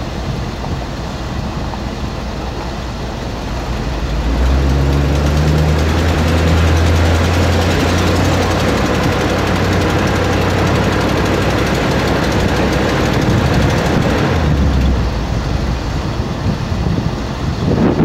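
Vehicle engine running while driving up a rough dirt track, with steady tyre and wind noise. The engine grows louder about four seconds in as it pulls, and eases off again near the end.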